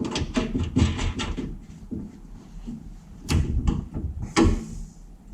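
Metal clanks and knocks of hand tools and bolted-on suspension parts being handled during fitting: a quick run of small clicks and knocks at the start, then a few single louder clunks near the end.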